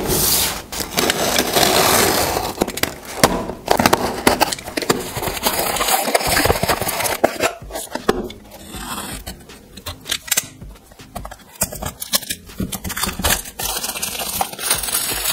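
Hands handling a cardboard shipping box and a plastic-wrapped smartwatch retail box: rustling, scraping and crinkling, broken by many sharp clicks and knocks.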